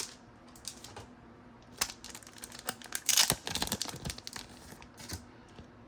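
Soft plastic crinkling and clicking as a trading card is handled and put into a plastic card sleeve, with a denser, louder run of rustles about three seconds in.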